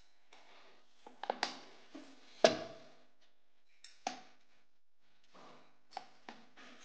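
Rolling pin pressing and rolling out a stiff peanut chikki mixture on a metal rolling board: soft rolling and scraping, broken by several knocks and clicks of the pin against the board, the loudest about two and a half seconds in.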